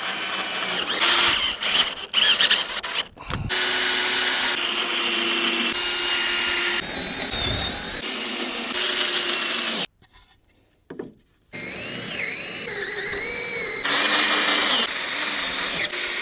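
Power drill driving lag screws into 2x4s, its motor whining in a string of short runs that change pitch and cut off abruptly. There is a brief near-silent gap a little past the middle.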